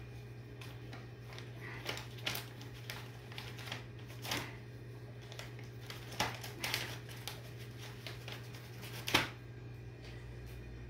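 Whitetail fawns suckling on bottle nipples: irregular soft clicks and smacks, one sharper near the end, over a steady low hum.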